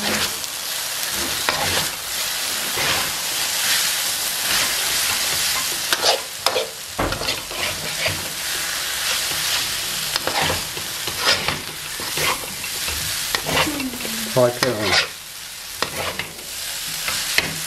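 Fried noodles sizzling in a hot wok while being stirred and tossed, with repeated scrapes and clinks of the utensil against the wok over a steady sizzle.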